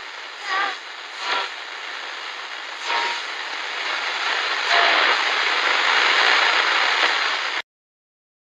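Loud, harsh static-like hiss with a few brief louder surges in the first three seconds. It gets louder still about five seconds in, then cuts off abruptly near the end.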